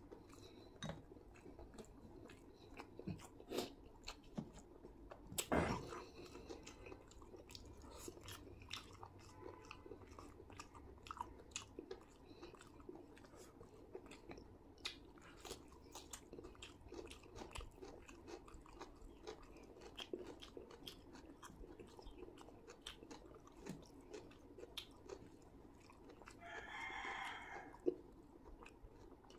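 Close, wet chewing and mouth smacks of a person eating chicken biryani by hand, with many short clicks. One louder smack comes about five and a half seconds in. Near the end there is a short higher-pitched call-like sound, about a second and a half long.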